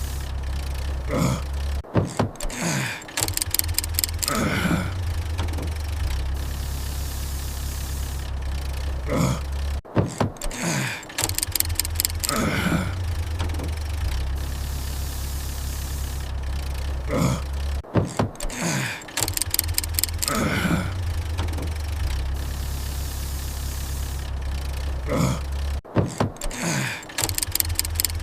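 Looped car-engine sound effect of an engine that won't start. A steady low rumble is broken about every eight seconds by a short run of sputtering clicks and falling tones as the engine tries and fails to catch.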